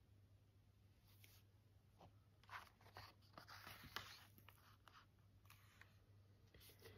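Faint rustling of a picture book's paper pages as a page is turned and pressed flat by hand, loudest from about two and a half to four seconds in.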